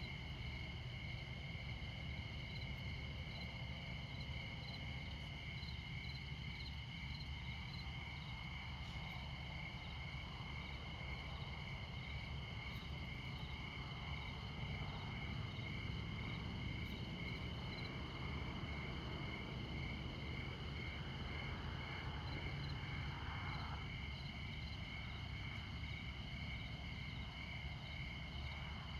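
Crickets chirping in a steady, evenly spaced rhythm over the low, constant rumble of distant interstate traffic. Midway through, the noise of a passing vehicle swells and then falls away.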